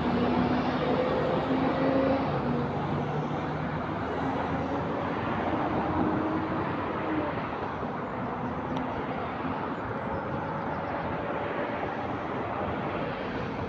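Alexander Dennis Enviro 400 double-decker bus's diesel engine running with an exhaust leak. The engine note shifts in pitch over the first half, then carries on steadily and fades slightly near the end.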